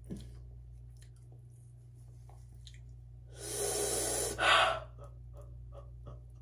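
A sharp hissing breath about three seconds in, then a louder breathy exhale, pained breathing as a wig is pulled off at the hairline. Faint small ticks before it.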